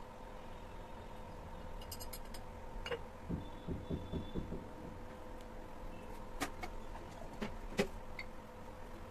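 A metal spoon tapping and clicking against a ceramic bowl as spice powder is tipped out: a quick run of soft low taps a few seconds in, then a few sharp clicks near the end, over a faint steady hum.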